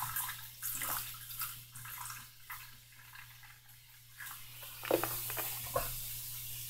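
White vinegar poured from a plastic jug through a small funnel into the sink's overflow hole, trickling and fizzing as it reacts with baking soda in the drain. The trickle dies away, and a knock comes about five seconds in, over a steady low hum.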